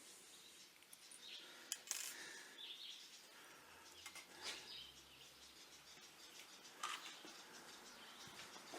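Near silence broken by a few faint, light clicks and clinks, about four of them scattered through the stretch.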